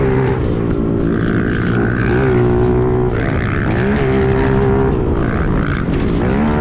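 Pit bike engine being ridden hard, its pitch climbing, holding and dropping several times as the throttle opens and closes.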